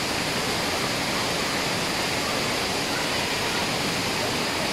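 Waterfall's falling water rushing, a steady, even noise.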